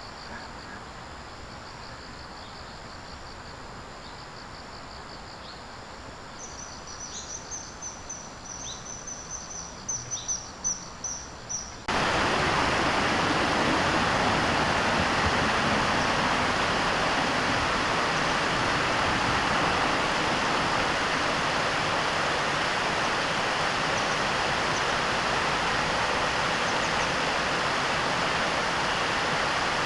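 Quiet outdoor ambience with a bird's short, high chirps repeated in a series, then, about a third of the way in, an abrupt switch to the loud, steady rush of flowing river water.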